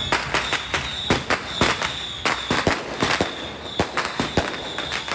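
Firecrackers going off for a procession, an irregular run of sharp bangs several times a second, with a thin high steady tone beneath them at times.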